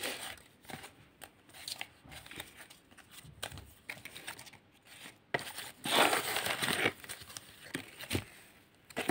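Cards being handled: a crinkly paper rustle with scattered light clicks, and a louder rustle about six seconds in as a card is brought up.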